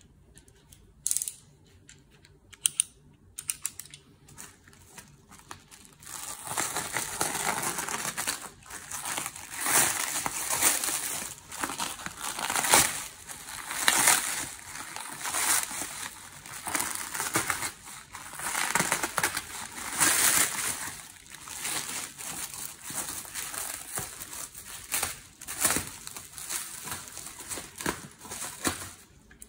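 Clear plastic stretch wrap being pulled and peeled off a parcel by hand, crinkling and crackling in uneven swells. It starts about six seconds in, after a few isolated clicks.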